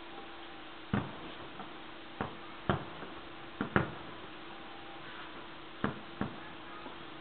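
Distant fireworks going off: an irregular string of bangs and pops, about seven clear ones, each with a short echoing tail, over a steady low hum.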